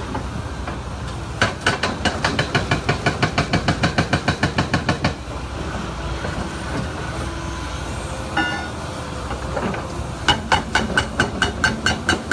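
Heavy machine running with a steady rumble and two runs of rapid, even impacts, about six a second, the second starting near the end; a short pitched tone sounds about two-thirds of the way through.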